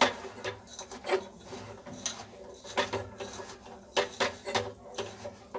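Hands mixing peanuts with gram flour and spices in a steel pot: a scratchy rubbing and rustling of the nuts and flour, in irregular strokes.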